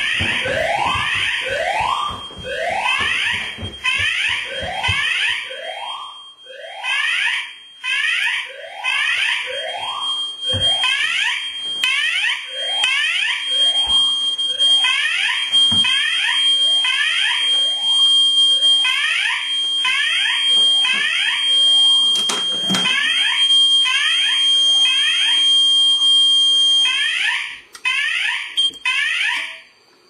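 Fire alarm evacuation tone from the house's tone-evac speakers: rising whoops repeating in quick succession throughout. A steady high beep joins in from about 13 s to 27 s, and there is one sharp knock a little after 22 s.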